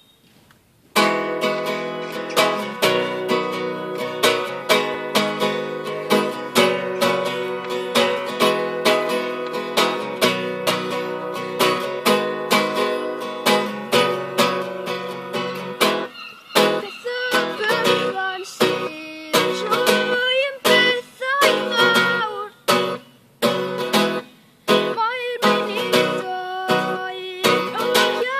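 Acoustic guitar strummed in a steady rhythm, starting about a second in. A little past halfway a boy's singing voice joins over the guitar, which breaks off briefly a few times.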